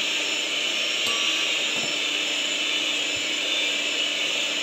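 Electric hand mixer running steadily, its beaters whipping egg whites into a foamy meringue in a glass bowl.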